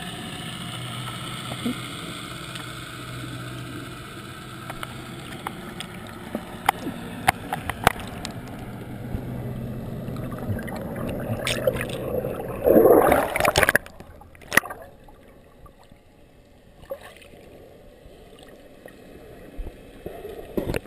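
Muffled water noise picked up by a camera held under water during a freedive. A steady low hum and watery hiss run for about twelve seconds, then a loud burst of rushing bubbles about thirteen seconds in, then quieter underwater sound with scattered clicks.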